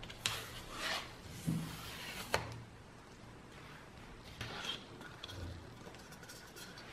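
Handling of a water-filter membrane module as its plastic protective end cap is pulled off and the module is set down: a few sharp plastic knocks and rubbing sounds in the first two and a half seconds, then fainter handling knocks.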